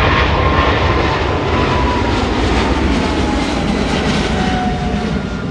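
Jet airliner passing close by, its engine noise loudest near the start and fading toward the end, with an engine whine sliding slowly down in pitch as it goes past.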